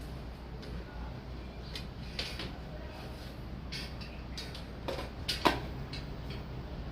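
Scattered light clicks and knocks of small equipment being handled, the loudest pair about five and a half seconds in, over a steady low hum.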